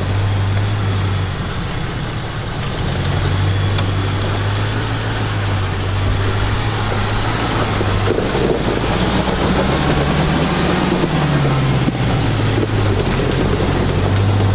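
Land Rover Defender pickup's engine running steadily at low revs as the truck crawls through a deep rut, the revs picking up for a few seconds past the middle and then settling back.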